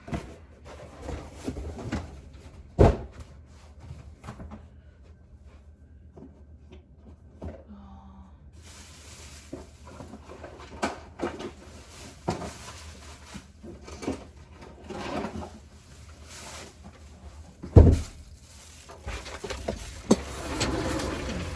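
Cardboard boxes being moved out of a closet: irregular knocks and thumps with rustling handling, the loudest thumps about three and about eighteen seconds in.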